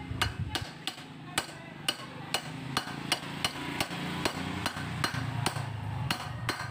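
Hammer tapping a new lower steering-head bearing cup into a Yamaha Jupiter Z frame, struck through the old cup so that it goes in evenly: sharp metal knocks, about two a second.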